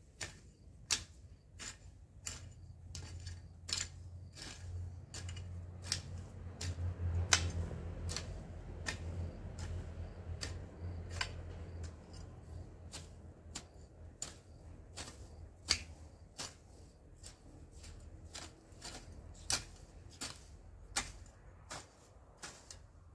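Long-handled garden tool scraping and chopping through dry soil and grass, making irregular sharp clicks about one or two a second. A low rumble swells under it and fades before the end.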